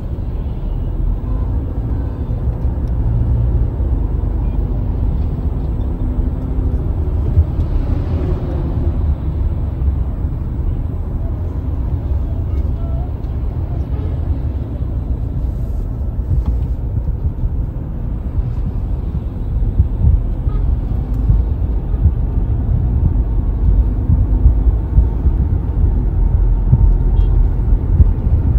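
Steady low rumble of a car's engine and tyres heard inside the cabin while driving along a highway, getting slightly louder and more uneven in the second half.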